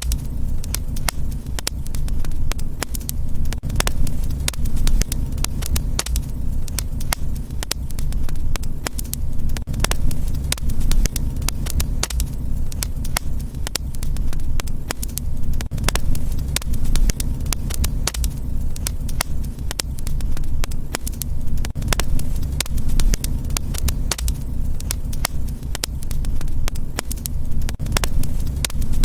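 Wood fire in a fireplace crackling, with many sharp irregular pops over a steady low rumble.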